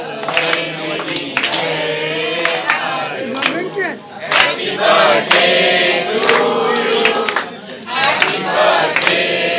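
A group of men and women singing together in unison, with sharp taps at irregular intervals along with the singing.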